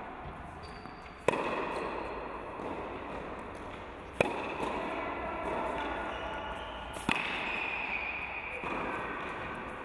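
Tennis racket striking the ball in a rally, three sharp hits about three seconds apart, with the indoor tennis hall's echo behind them.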